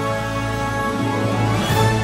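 Film score music over the end credits: a sustained, held chord with a brief rising swell near the end.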